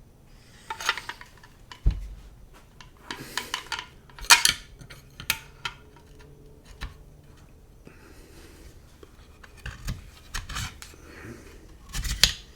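Metal-on-metal clicking, rattling and scraping as a .22 LR conversion barrel liner is fed down into an HK MP5's barrel, with a dull knock about two seconds in and a cluster of clicks near the end.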